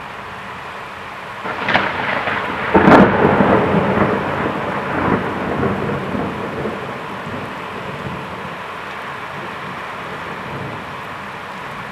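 Thunderclap over steady rain: a sharp crack about a second and a half in, the loudest crash about three seconds in, then rumbling that fades away over the next few seconds.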